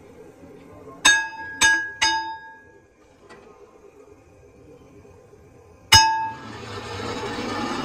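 A hammer strikes a large steel pipe clamped in a lathe chuck, tapping it true. Three quick strikes come about a second in and one more near six seconds, each ringing with a clear metallic tone. The lathe then starts running, its steady noise building near the end.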